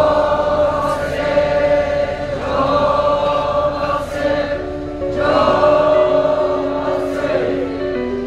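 A crowd of voices singing a gospel hymn together in phrases about two and a half seconds long. About halfway through, steady held instrumental notes come in beneath the singing.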